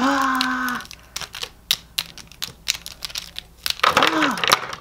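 Imaginext plastic action figures clacking and tapping against each other in a mock fight, a quick run of small hard clicks and knocks. A short held vocal cry opens it and another brief one comes about four seconds in.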